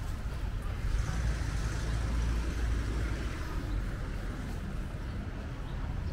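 A motor vehicle passing on the street over a low, steady rumble. It swells about a second in and fades after about three seconds.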